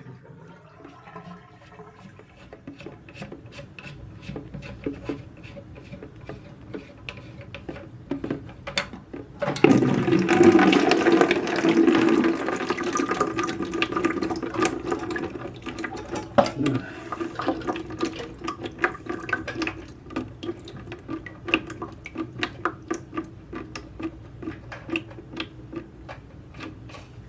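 Water pouring and splashing out of a bucket during a toilet repair. It starts suddenly about nine and a half seconds in and slowly tapers off. Small clicks and knocks of handling come before and after it.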